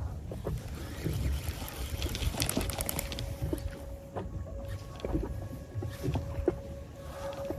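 Water sloshing against a small boat's hull, with a low rumble of wind on the microphone. A quick run of clicks comes about two and a half seconds in, and a faint steady tone starts at about the same point.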